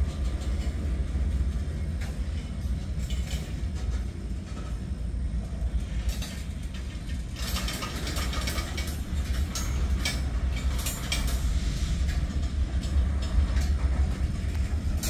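Freight train's covered hopper cars rolling past: a steady low rumble of steel wheels on rail, with a run of sharper metallic clanks and screeches about halfway through.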